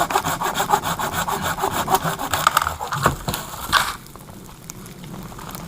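A hand saw cutting through wood in quick, regular rasping strokes. The sawing stops about four seconds in.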